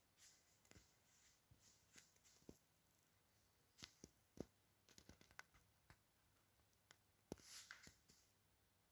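Near silence: room tone with faint scattered clicks and a brief soft rustle near the end.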